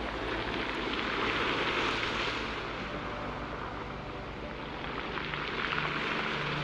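Steady water-like hiss over sustained low notes of soft background music, the notes shifting about three seconds in and again near the end.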